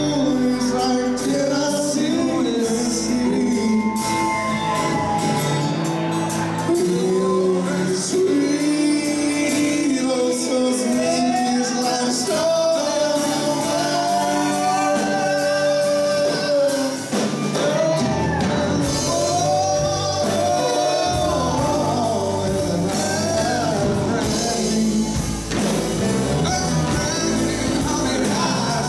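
Live country band playing: a man singing lead over acoustic and electric guitars, drums and keyboard. The deep bass drops out for a stretch and the full band comes back in about two-thirds of the way through.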